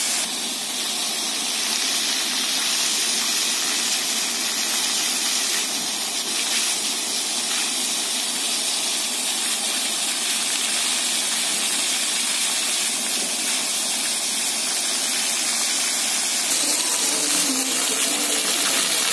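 Pavement fountain jets splashing back onto the wet paving: a steady hiss of falling water.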